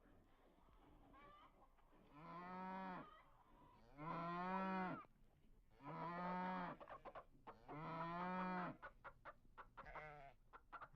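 Wildebeest lowing: four long, even-pitched calls about two seconds apart, followed near the end by a quick run of short clicking or chattering sounds.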